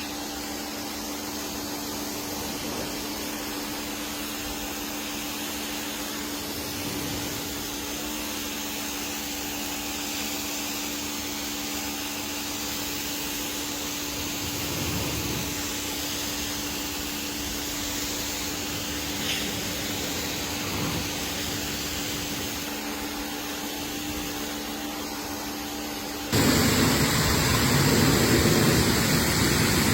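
A cleaning machine's motor running steadily with a hum and a hiss. About 26 seconds in, it cuts abruptly to a louder, even rushing noise.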